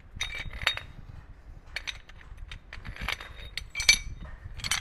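Metal boat hardware being handled, clinking and knocking together in a run of sharp, irregular clinks, each with a brief ring. The loudest clink comes about four seconds in.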